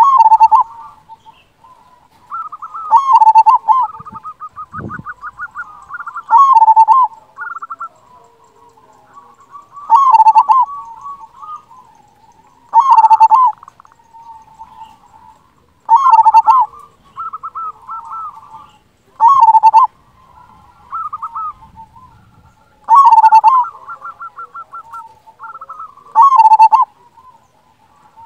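Zebra dove (perkutut) singing its cooing song. Each phrase is a run of quick rolling notes ending in a loud coo. Nine such phrases come about every three seconds, with softer trills in between.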